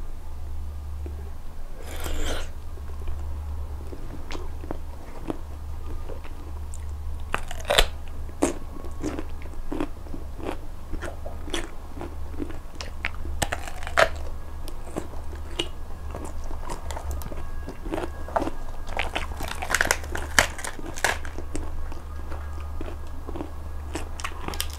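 Close-miked crunchy biting and chewing of raw zucchini, many short crisp crunches over a steady low hum.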